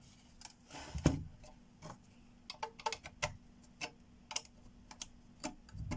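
Irregular clicks and taps of hard plastic as a GeForce GTX 280 graphics card's plastic shroud is handled, turned over and pried at with a plastic spudger, with a heavier knock about a second in and a quick run of clicks around the middle.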